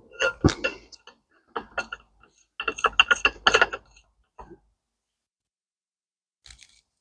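Steel bearing-puller parts clicking and clinking as the split collar halves and retaining ring are seated by hand around a differential carrier bearing. The clicks come in several quick clusters and stop about four and a half seconds in.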